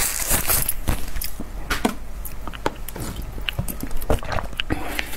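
Close-up eating sounds: a bite at the start, then chewing with irregular small clicks and crackles.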